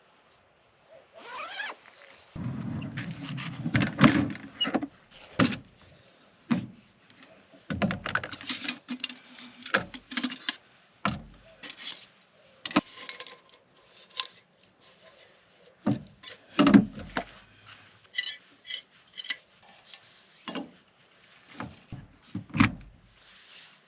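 Someone handling camp gear at close range: irregular knocks, thunks, clinks and scrapes, with a short stretch of low rumbling handling noise a few seconds in.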